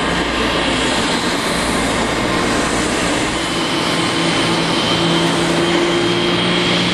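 Boeing 747-8 freighter's GEnx-2B turbofans idling with a steady jet whine and rumble. A thin high whistle joins about halfway through, and a low hum grows stronger near the end.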